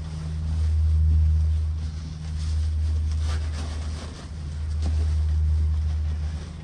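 Wind buffeting the microphone as a low rumble that swells and dips, over faint rustling of chopped straw and a cloth sheet being handled.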